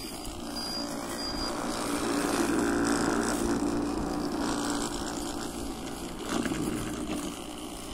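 Homemade remote-controlled electric lawnmower running. Its 24 V, 120 W e-scooter motor spins a brush-cutter blade through grass while hoverboard hub motors drive it in reverse. The sound swells about two to three seconds in, then eases.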